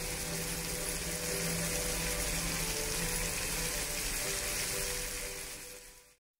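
Food sizzling in hot oil in a pan, a steady frying hiss that fades out near the end.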